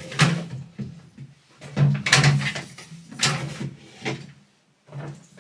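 Household items being handled in a small tiled bathroom: a handful of short knocks and rattles, like a cabinet door and things set down on a shelf.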